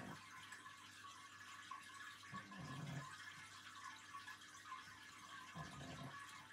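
Near silence: quiet room tone, with two faint, brief low sounds about two and a half and five and a half seconds in.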